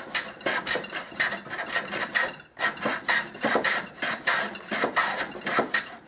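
Large handmade wooden skewed rabbet plane cutting a cross-grain rabbet in maple with quick, short scraping strokes, about three a second, with a brief pause about two and a half seconds in. The plane is taking thin shavings that clear nicely.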